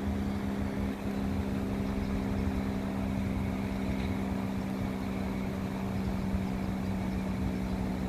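A steady, low mechanical drone holding one constant pitch with several overtones, over a rumbling undertone.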